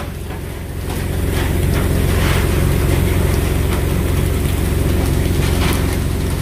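A fishing boat's engine running steadily with a deep hum, with scattered short clicks and hisses over it.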